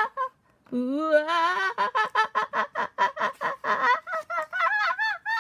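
A voice acting out loud crying: a rising wail, then a long run of quick sobbing pulses, about four or five a second, with a brief break after the opening wail.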